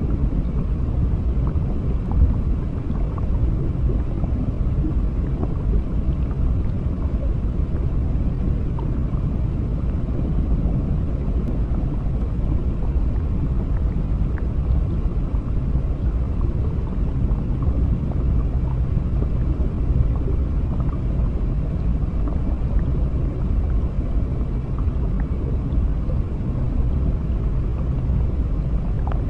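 Underwater ambience: a steady low rumble of water, with faint scattered bubbling.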